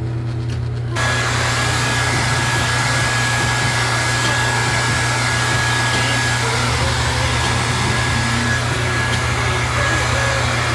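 Handheld hair dryer switched on about a second in, then running steadily with a high whine over its rush of air.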